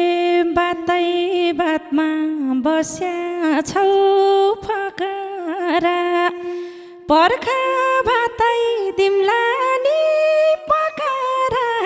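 A single voice singing a Nepali dohori folk melody unaccompanied by drums, holding long notes with sliding, ornamented turns between them.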